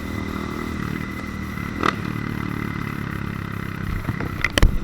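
Small single-cylinder motorcycle engine running steadily on the road, with a few sharp knocks or clatters near the end.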